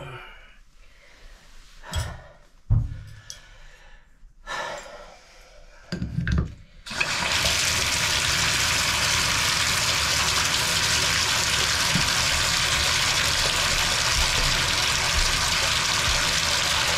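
A few knocks and clicks as the lever handle is fitted onto a Moen Posi-Temp shower valve, then about seven seconds in the valve is turned on and water runs steadily through the shower.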